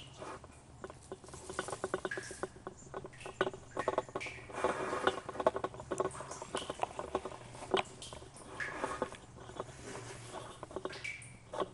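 Footsteps crunching over rough, gritty ground: irregular clusters of crunches and scrapes, busiest around the middle.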